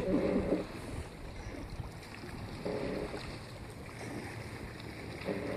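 Wind rumbling on the microphone and water around a kayak, with short bits of a voice in the first half second and again about three seconds in.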